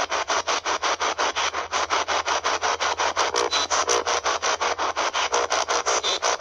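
Spirit box (a radio that sweeps through stations) scanning, giving loud static chopped into rapid even bursts about seven a second, with brief snatches of radio sound in between.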